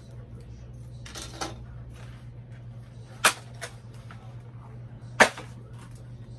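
Cardboard doll packaging being pulled apart by hand: a brief scrape about a second in, then two sharp snaps about two seconds apart.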